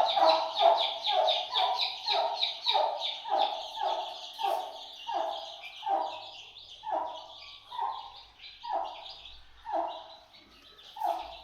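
Chicken calling in a long series of short, repeated clucks, about three a second at first and slowing to about one a second.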